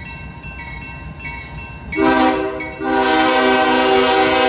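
A first-generation Nathan K5HL five-chime air horn on a CSX GE ES40DC locomotive sounds a short blast about two seconds in, then a long, loud blast from about three seconds in. Under the horn is the steady rumble of the passing train.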